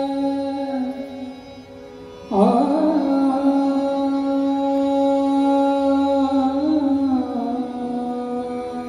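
Male Hindustani classical (Kirana gharana) vocalist singing long held notes of a Marathi abhang, with harmonium accompaniment. The music dips about a second in, then a strong sustained sung note comes in just over two seconds in and is held with small shifts in pitch.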